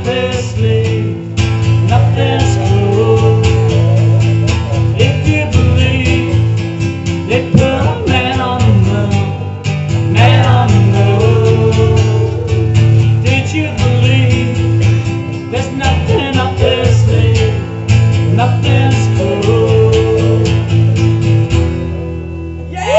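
Acoustic guitar strummed steadily with a man singing wordlessly over it: a live solo acoustic performance in the song's closing bars. The strumming thins out and dies away just before the end.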